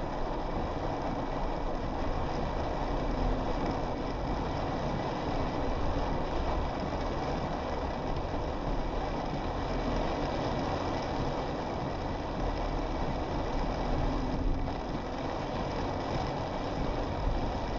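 Steady road noise heard from inside a moving car in rain: tyres hissing on a wet road and rain on the car, with the engine low underneath.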